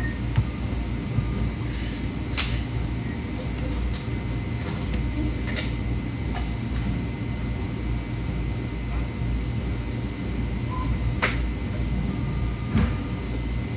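Long Island Rail Road electric train running, heard from inside a car: a steady low rumble with a few sharp clicks and rattles.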